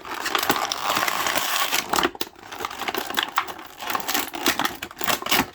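Plastic toy packaging crinkling and crackling as it is handled, thick for the first two seconds, then broken into scattered clicks and rustles.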